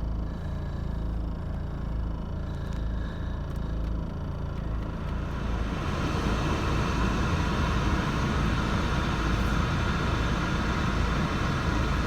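BMW E46 320d's four-cylinder diesel engine idling unevenly, the rough idle its owner is trying to cure despite a new VP44 injection pump, injectors and glow plugs. About halfway through it gets louder and hissier.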